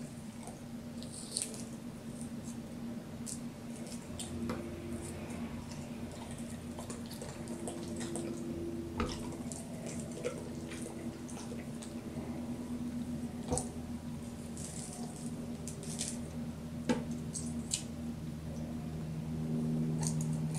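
A dog chewing and smacking on clementine segments: wet, squishy mouth sounds with many short sharp clicks, over a steady low hum.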